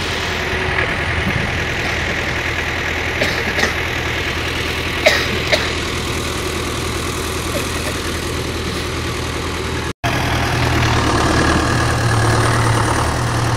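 Engine idling steadily, with a few short sharp knocks in the first half. A brief dropout comes about ten seconds in, after which the low hum is louder.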